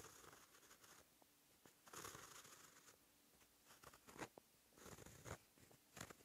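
A white ink pen scratching across textured paper in short separate strokes as kanji are written, with small sharp ticks as the tip lands and lifts. It is quiet throughout.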